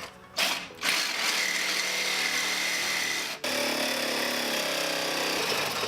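Power cutting tool cutting through a rusted steel exhaust pipe. It starts with a short burst, then runs steadily with a high whine from about a second in, broken by a brief dip about three and a half seconds in.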